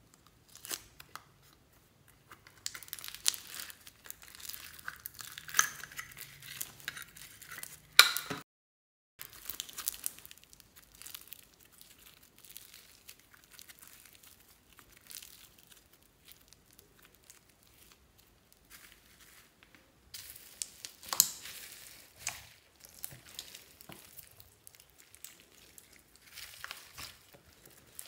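Hands squishing and stretching slime packed with foam beads: a run of small crackling, crinkling pops. The pops are loudest in the first eight seconds and again a little after twenty seconds. About eight seconds in there is a sharp click, and the sound then cuts out for under a second.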